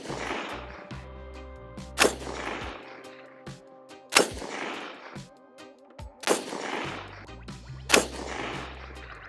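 Geissele Super Duty AR-15 rifle in 5.56 firing four deliberate shots about two seconds apart, each followed by a long echo dying away. This is slow fire for an accuracy group, with light 45-grain hollow-point loads.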